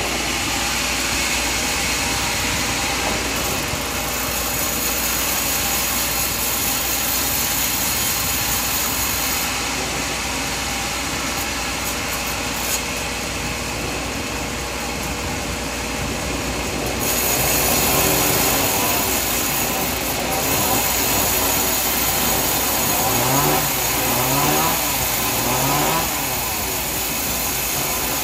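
Sawmill machinery running with a loud, steady mechanical noise as coconut trunks are sawn. About two-thirds of the way through it grows a little louder, and near the end a few short rising whines repeat.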